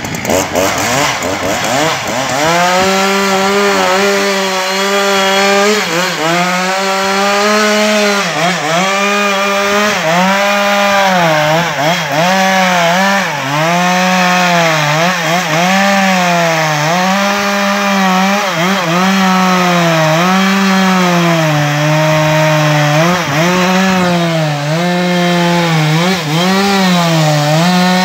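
Husqvarna 372XP two-stroke chainsaw running at full throttle while cutting into a large log, its engine pitch dipping and recovering every second or two as the chain bogs under load and frees up again.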